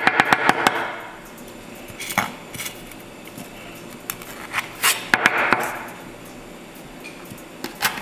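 Kitchen knife tapping and clicking on a wooden cutting board while slicing small red chilies, in several short bursts of quick strokes with pauses between.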